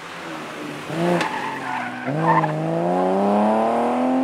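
BMW E30 325i rally car's 2.5-litre straight-six engine, with a short blip of revs about a second in, then accelerating hard with its pitch rising steadily through the last two seconds.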